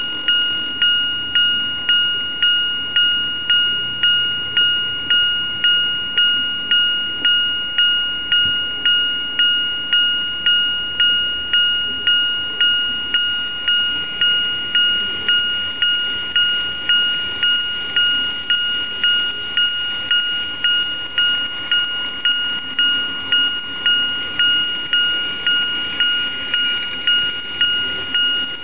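Model railway level-crossing warning bell, an electronic Japanese-style crossing alarm ringing steadily about three times every two seconds, each two-tone ring dying away before the next.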